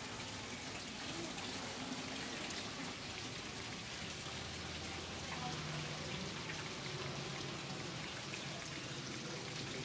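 Running water splashing steadily, an even rushing hiss with no pauses.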